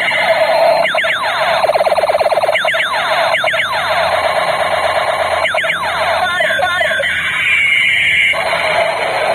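Battery-powered Steyr AUG-style toy rifle playing its electronic gun sound effects through a small speaker. A steady buzz carries three runs of rapid falling zaps, followed by a warbling electronic stretch that ends about 8 seconds in.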